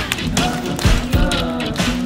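Background music with a drum beat and sustained pitched instruments.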